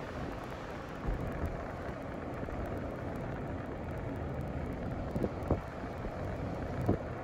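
Steady road and tyre noise of a moving car, heard from inside the car, with a few light knocks.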